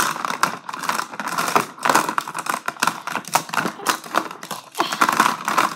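Rapid, irregular clicking and rustling, like objects being handled close to the microphone.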